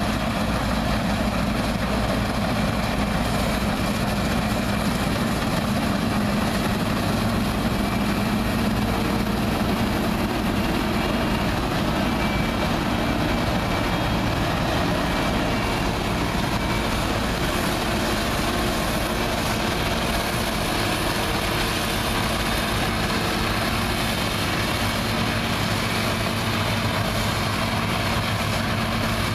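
New Holland TC54 combine harvester running steadily while harvesting: the diesel engine hums alongside the noise of the threshing machinery, at a constant level.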